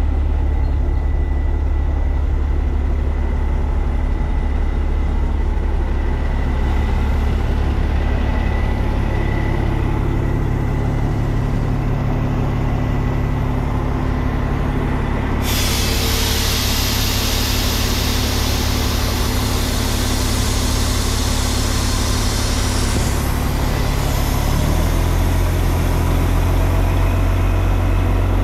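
The 2003 Western Star quad-axle dump truck's diesel engine running steadily. A loud air hiss starts about halfway through and stops about seven seconds later, and the engine note shifts near the end.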